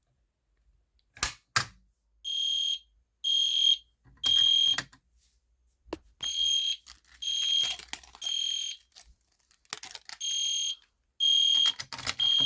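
Two sharp clicks, then an EST Genesis G1 horn strobe sounding in the code 3 temporal pattern: three short high-pitched horn blasts, a pause, and the group of three repeated, three groups in all.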